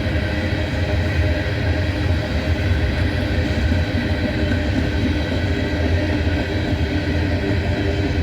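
Loaded coal train climbing a grade, with a steady, loud low drone from its diesel locomotives working under load and slowing on the hill.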